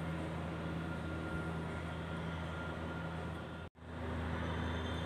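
Steady low drone of a borewell drilling rig working nearby, its engine and compressor running without let-up; it cuts out for an instant about three and a half seconds in.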